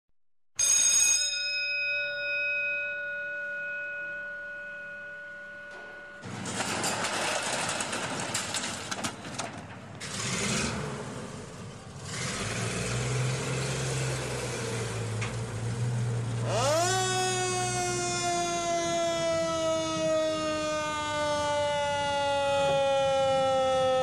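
A fire engine's bell is struck and rings with several clear tones that fade, cutting off about six seconds in. The engine then starts up and runs with a steady low hum. About two-thirds of the way through, the siren winds up quickly and then slowly falls in pitch.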